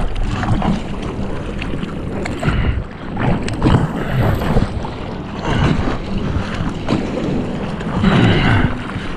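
Surfer paddling a surfboard hard to catch a wave: repeated splashes of arm strokes and water sloshing against the board, close to a board-mounted camera, with wind on the microphone.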